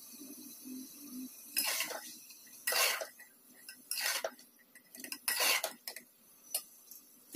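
Steel spatula scraping and clanking against the inside of an aluminium pressure cooker as bitter gourd masala is stirred, in about five strokes roughly a second apart.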